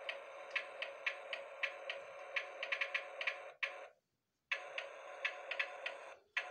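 Toy RC monster truck's small electric drive motor and plastic gearbox whirring faintly, with irregular sharp clicks. It cuts out for about a second near the middle and briefly again near the end.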